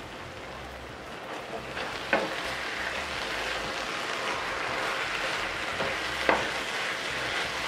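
Shredded cabbage and chicken sizzling in a skillet while a wooden spoon stirs and turns it, a steady hiss with two sharp knocks of the spoon against the pan, about two seconds in and again a little after six seconds.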